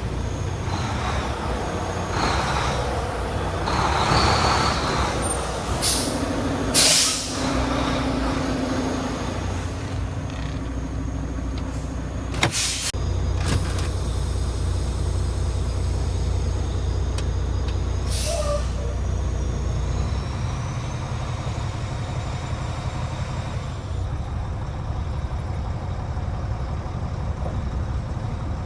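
Heavy truck idling steadily. A loud burst of air hissing comes about seven seconds in, and a few sharp clicks come around twelve seconds.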